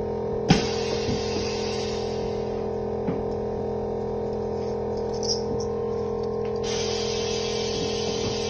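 Background music with sustained tones, with a few short clicks, the sharpest about half a second in.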